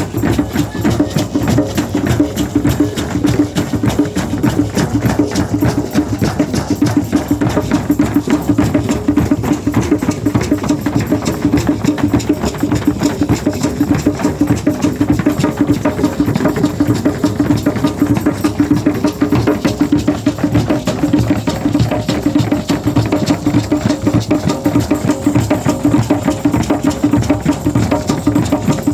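Shamanic drum beaten in a fast, steady, unbroken rhythm.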